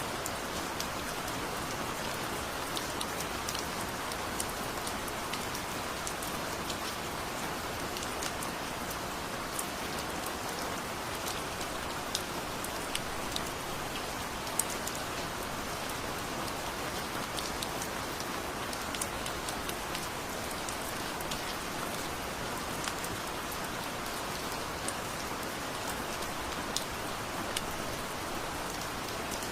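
Heavy rain falling steadily, a dense hiss with many single drops ticking sharply close by.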